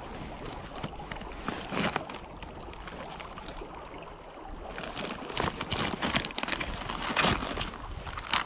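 Wind buffeting the microphone, with close rustling and crackling of clothing and gloved hands handling fishing line; the crackling grows busier about five seconds in.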